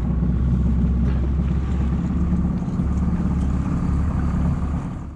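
A small fishing boat's motor running steadily under way, with a steady rush of noise over it.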